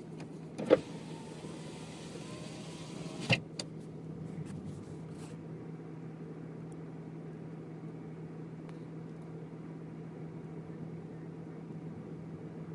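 Steady low hum of a car idling while stopped. Shortly after the start there is a sharp knock, then about three seconds of hiss ending in another knock.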